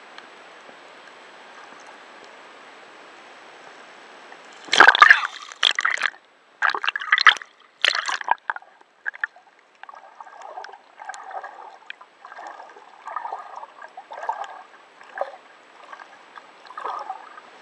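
Water splashing and sloshing: a steady hiss at first, then a few loud rushing surges about five seconds in, followed by a run of smaller irregular gurgling splashes.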